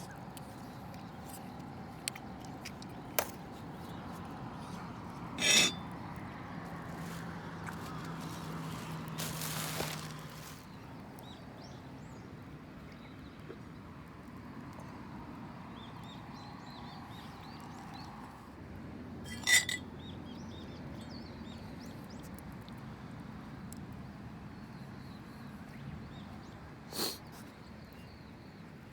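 A few sharp metallic clinks of cooking utensils against cookware, spaced several seconds apart, over a steady low background with a brief rushing hiss about nine seconds in.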